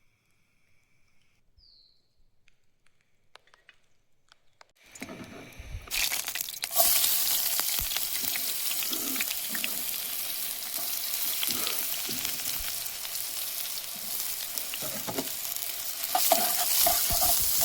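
Food going into hot oil and ghee in a pan and sizzling: quiet for about five seconds, then the frying hiss builds and runs loud and steady with some stirring.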